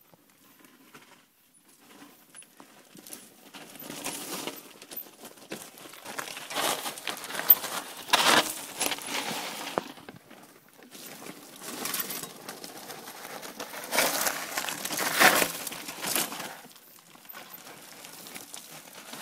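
Loose scree and gravel crunching and sliding in irregular surges, with scattered sharp knocks of stones, loudest about 8 and 15 seconds in.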